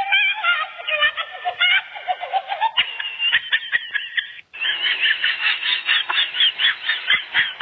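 Animal calls: a jumble of wavering, pitched cries, then after a brief drop-out about halfway through, a fast, even run of short, high calls at about four a second.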